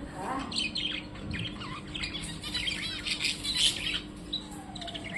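Small birds chirping, a busy run of quick, high chirps that is thickest in the middle.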